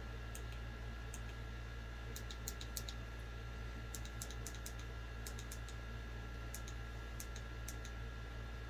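Scattered faint light clicks, coming in small irregular clusters, over a steady low hum.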